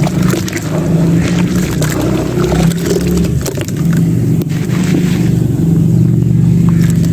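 Crumbled clay being worked in water: a steady low churning with many fine crackles and a few sharper clicks.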